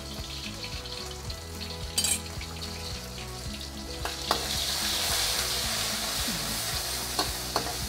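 Pounded sambal belacan frying in hot oil in a wok, stirred with a metal spatula. A sharp knock comes about two seconds in; the sizzle swells about four seconds in and holds, with short scrapes of the spatula on the wok near the end.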